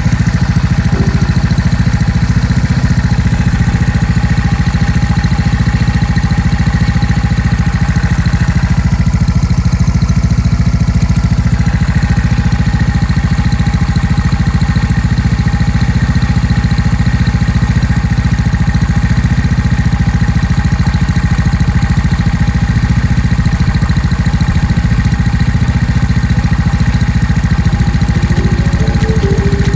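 A 32-year-old SYM Dio scooter engine idling steadily, with an even, unchanging pitch.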